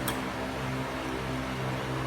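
Steady electrical hum over a haze of noise, with one faint click about a tenth of a second in.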